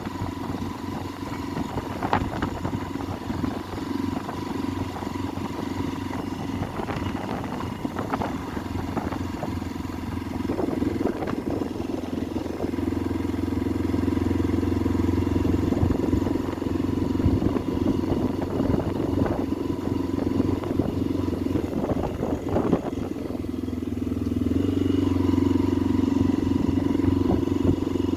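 Motorcycle engine running while being ridden, a steady hum that grows louder about twelve seconds in and again near the end, with a few scattered clicks.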